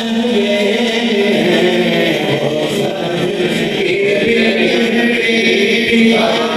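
A man singing a naat, an Urdu devotional poem, into a microphone, with long held, wavering notes.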